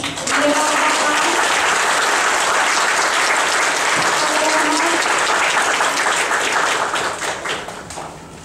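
Audience applauding, a dense clatter of many hands clapping that tapers off in the last second or so.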